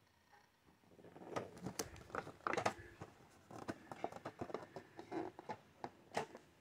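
Plastic pieces of a Barbie food truck playset being handled and fitted together: an irregular run of clicks and taps, the sharpest about two and a half seconds in and near the end.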